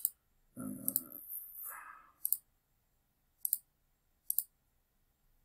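Computer mouse clicking: about five short, sharp single clicks spaced roughly a second apart, with a brief low mumble of a voice about a second in.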